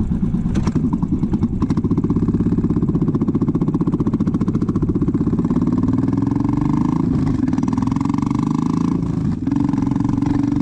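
Motorcycle engine revving hard, its pitch climbing, with two short breaks about seven and nine seconds in.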